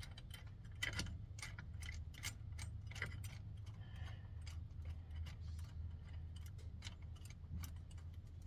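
Scattered light metallic clicks and taps from hand tools and brake-kit parts being handled, irregular and a dozen or so in all, over a low steady hum.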